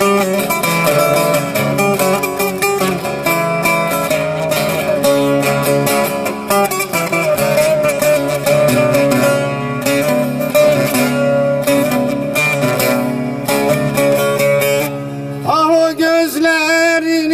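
Bağlama (long-necked Turkish saz) played as an instrumental passage of fast plucked notes, amplified through a microphone and PA. Near the end a man starts singing a folk song over it.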